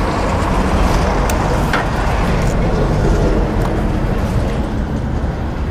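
Honda XRE 190's single-cylinder engine idling steadily, with a few light clicks about one and a half to two and a half seconds in.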